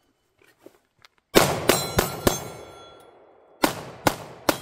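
Pistol shots in a timed match string: four quick shots about a second in, then three more near the end. Thin metallic ringing lingers after the shots, from steel plate targets being hit.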